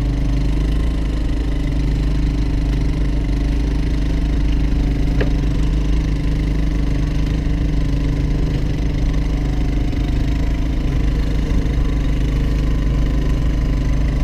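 A boat's engine idling, a steady low hum that does not change.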